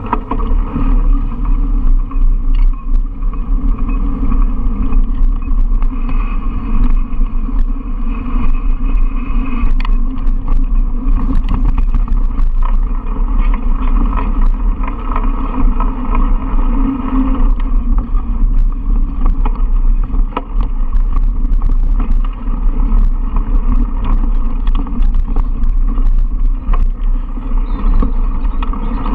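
Mountain bike being ridden over a dirt forest trail, heard close through the rider's camera: a continuous loud rumble of tyres rolling over the ground, with many short knocks and rattles as the bike goes over bumps.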